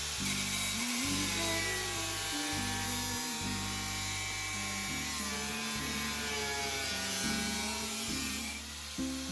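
Background music: a song with steady bass notes changing in blocks under a gliding melody line.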